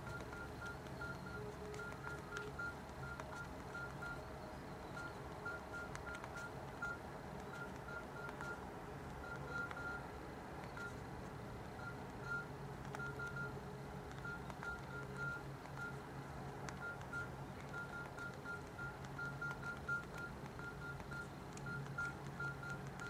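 Samsung Comeback phone's key tones as a message is typed on its QWERTY keyboard: short beeps all at one pitch, one per keypress, coming in irregular runs of several a second with brief pauses between words.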